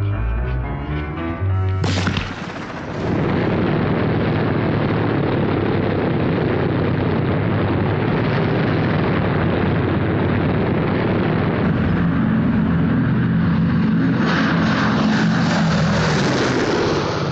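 After a sudden loud onset about two seconds in, the piston engines and propellers of B-17 Flying Fortress bombers run in a loud, dense drone. A steadier low hum fills in from about twelve seconds in as a bomber flies over.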